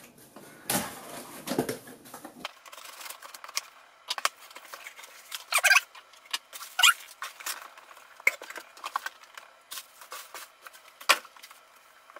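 A cardboard shipping box being slit open with a utility knife, then its flaps pulled back and the packaging inside handled: scattered scrapes, squeaky cardboard rubs and light clicks.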